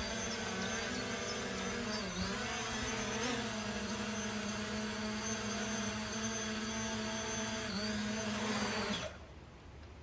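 Parrot Anafi Ai quadcopter's rotors humming steadily as it descends to land, the pitch dipping briefly twice, then the motors cut off suddenly about nine seconds in once it is down.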